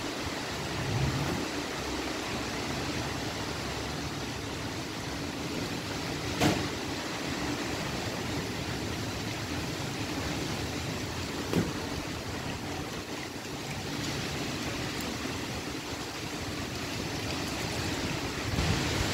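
Strong dust-storm wind blowing steadily through trees, an even rushing hiss. There are two short sharp knocks, about six and a half and eleven and a half seconds in.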